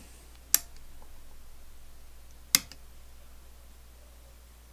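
Two sharp clicks about two seconds apart from the toggle switch on a Dumore drill press motor being flicked, with no motor sound following: the motor does not start when switched on, which the owner puts down to maybe a bad brush or a dead spot on the commutator.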